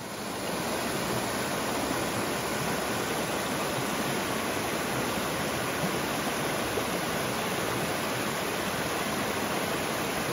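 Creek water rushing steadily over a small rocky cascade, fading in at the start.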